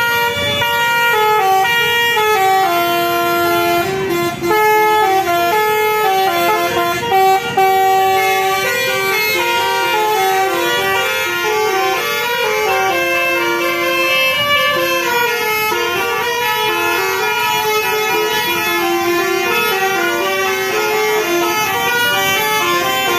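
Telolet bus air horns, Basuri multi-tone horns, playing a quick melody of stepped notes without a break.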